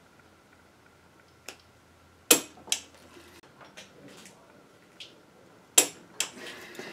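Snap-on click-type torque wrench clicking as differential ring gear bolts reach the set 90 ft-lb: two sharp clicks a few seconds apart, with fainter metallic ticks between.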